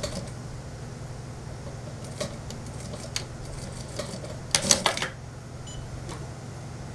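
Light clicks and knocks as fabric is worked under an industrial sewing machine's presser foot, with a short burst of sharp clicks about four and a half seconds in, over a steady low hum.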